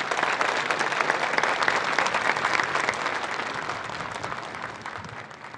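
Crowd applauding: a dense patter of many hands clapping that is loudest in the first few seconds, then thins out and dies away toward the end.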